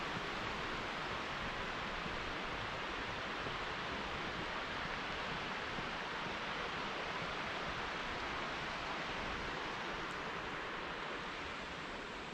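Steady rush of flowing river water, an even hiss that eases off slightly near the end.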